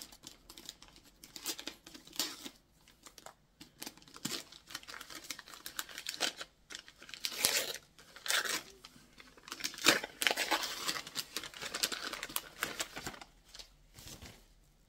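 Paper wrapping being torn open and crumpled by hand as a small gift package is unwrapped, in irregular rustling bursts.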